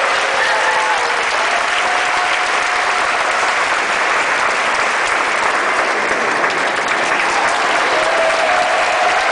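Audience applauding steadily, with a few voices calling out in long held calls over it near the start and again near the end.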